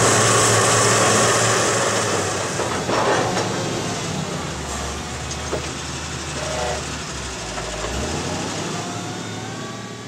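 Ginaf 360 ATI maize truck's diesel engine running steadily, gradually growing quieter, with a short knock about three seconds in and a rising engine note near the end.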